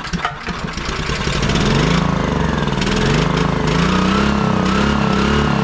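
Honda GX240 engine on a Honda EB3800X generator, fed starting fluid, firing unevenly at first and then catching about a second and a half in. It runs with its speed rising and falling, almost overspeeding on the starting fluid.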